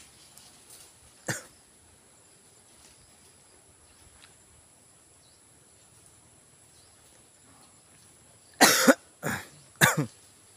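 A person coughing: one short cough about a second in, then three loud coughs in quick succession near the end.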